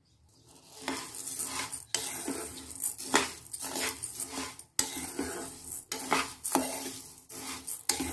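Steel spoon stirring dry rice and urad dal roasting in a coated kadai: repeated scraping strokes against the pan with the grains rustling and clinking.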